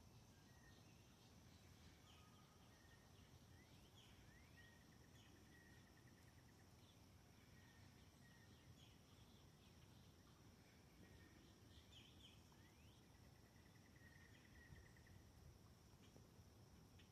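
Faint outdoor birdsong: scattered short chirps and whistled sweeps, with a rapid trill about five seconds in and another near the end. A steady, high insect drone runs beneath.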